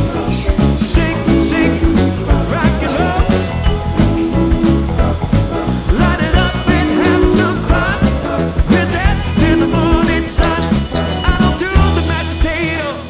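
Upbeat background music with a steady beat, bass and a wavering lead melody.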